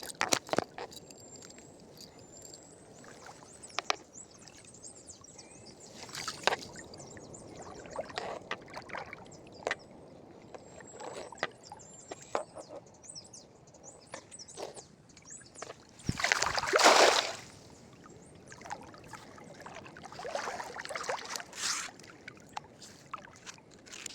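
Water sloshing and splashing, with scattered knocks and clicks. The loudest rush of splashing comes about two-thirds of the way in.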